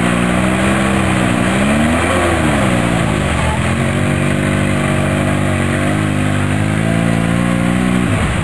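ATV engine revving hard as the quad churns through a deep mud hole, its tyres spinning and throwing up muddy water. The revs rise and fall about two seconds in, then hold high for several seconds before dropping near the end.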